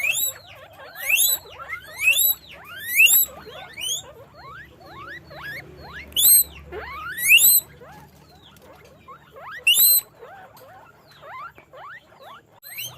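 Guinea pigs wheeking: repeated rising, whistle-like squeaks, the loudest about a second apart at first, with fainter squeaks overlapping between them and thinning out in the last few seconds.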